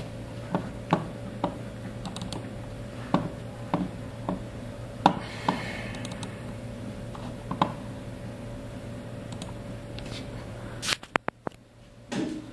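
Irregular clicks and taps from a computer keyboard and mouse being used, about a dozen scattered strokes, over a steady electrical hum.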